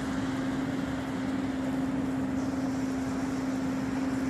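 Steady low hum holding one unchanging pitch over a broad rumbling wash. It is an unexplained outdoor sound, which the listener says is not the plane.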